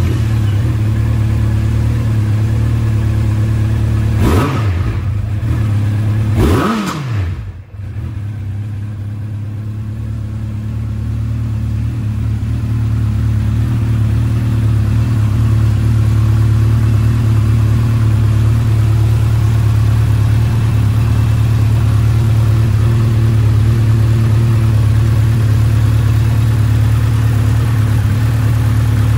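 Honda CB1300 Super Four SP's inline-four engine idling just after starting, blipped twice, about four and six and a half seconds in, then settling back to a steady idle.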